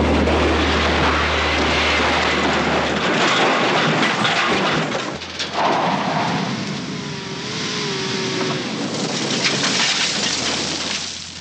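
Car stunt crash soundtrack: loud crashing and rumbling as a car rolls onto its roof, then car engines running and tyre noise on dirt as other cars drive up.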